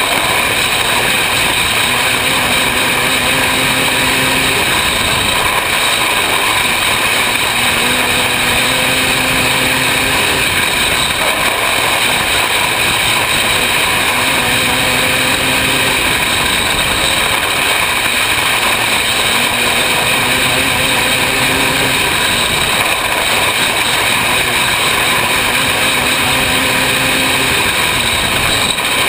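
Engine of a 500cc winged dirt-track racing car running hard at race pace, heard on-board. It is loud and unbroken, and its note shifts in a cycle every few seconds as the car goes around the track.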